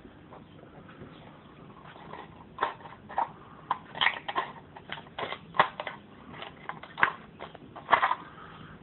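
Scissors snipping through the wall of a plastic bottle, cutting it into strips. About two and a half seconds in it becomes a string of sharp, irregular crunchy snips.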